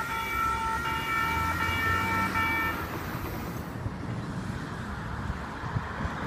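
Grade-crossing WCH electronic bells ringing a rapid, repeating electronic ding, then stopping about three seconds in as the crossing deactivates with the gates going up. Afterwards there is a low rumble from the departing Amtrak passenger train.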